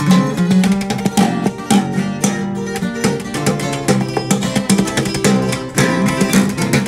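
Instrumental music: acoustic guitars plucked in a quick, busy pattern over a bass line, with no singing.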